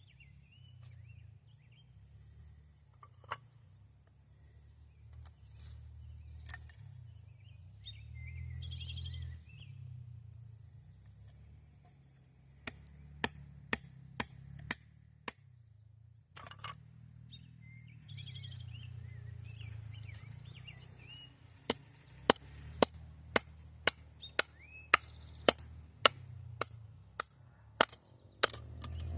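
Sharp knocks in two runs, about six in quick succession, then a longer steady run at roughly two a second, over a low outdoor rumble, with birds chirping now and then.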